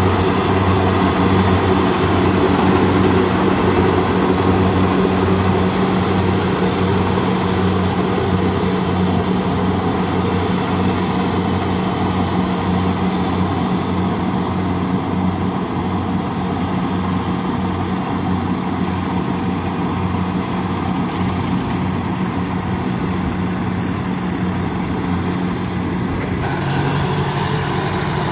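Kubota crawler combine harvester's diesel engine running steadily under load while it cuts and threshes rice, with a pulsing low throb. About two seconds before the end the sound changes to a different engine, a small tracked carrier's.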